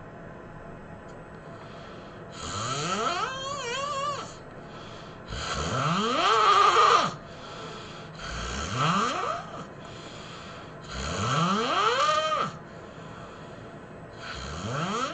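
A person snoring loudly: five long snores about three seconds apart, each with a whining pitch that rises through the breath, the last cut off at the end.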